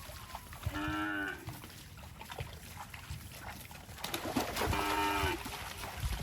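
Cattle mooing: two short calls about four seconds apart, over low, uneven rumbling noise.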